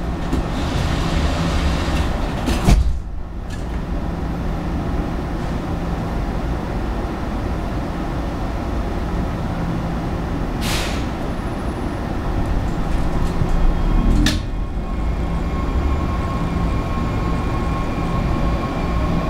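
Metrorail subway car's doors sliding shut with a thump about three seconds in, over the car's steady rumbling hum. A short hiss of air comes near the middle, then a clunk, and the car starts to move off with a steady whine.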